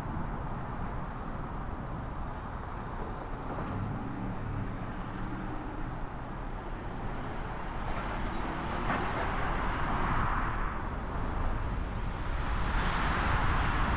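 City street traffic: a steady low rumble of engines and road noise, with a low engine hum a few seconds in and the noise of passing vehicles swelling twice in the second half, louder near the end.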